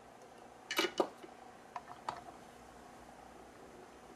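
A few sharp clicks and taps from handling a small printed circuit board in a bench vise while soldering: two loud clicks close together about a second in, then a few softer ones, over a faint steady hum.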